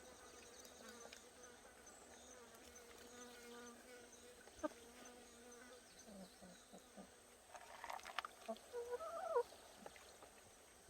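A fly buzzing steadily close by for several seconds, then fading out. It is followed by a sharp click a little before halfway, and a cluster of short knocks and a brief wavering sound near the end.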